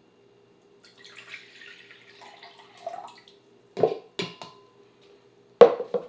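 Water poured out of a plastic cup into another container for about two seconds, then three knocks as plastic cups are set down on the wooden table, the last one the loudest.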